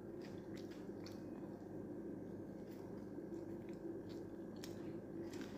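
Faint close-mouthed chewing of a mouthful of fried fish, with scattered soft mouth clicks, over a steady low hum.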